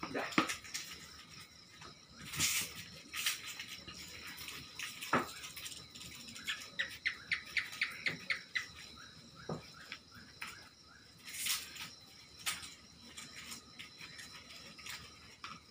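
A knife cutting and scraping a halved bitter gourd, with scattered short cutting strokes and a few scratchy scrapes, over a steady high insect drone. About six and a half seconds in comes a quick run of about a dozen chirps, roughly seven a second.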